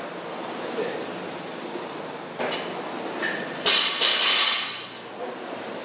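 Concept2 rowing machine's air-resistance flywheel whirring steadily as the rower pulls her strokes, with a loud clatter twice in quick succession a little past halfway.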